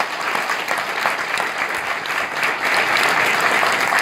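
Audience applauding, many hands clapping at once, swelling a little louder in the second half.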